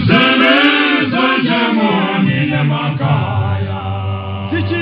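Male vocal group singing a Zulu song a cappella in close harmony, several voices together over a low bass part holding long notes.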